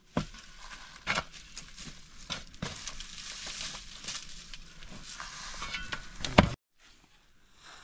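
Food sizzling in a hot pan, with a few sharp knocks of a utensil against it; the sizzle cuts off abruptly near the end, leaving only a faint hiss.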